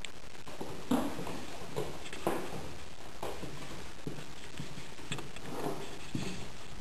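Angora rabbit hopping across a hard floor: soft, irregular thumps and taps of its feet, roughly one a second.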